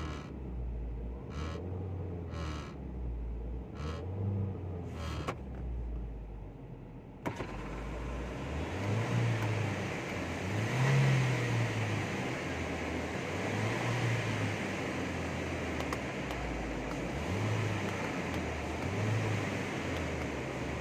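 Car engine running with a rattling noise from the front right-hand door area, heard as short sharp rattles a second or so apart. About seven seconds in there is a click, and a louder, steadier running sound takes over.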